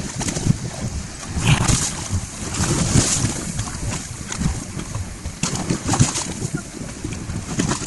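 Wind buffeting the microphone over choppy sea, a steady rumble that gusts harder twice.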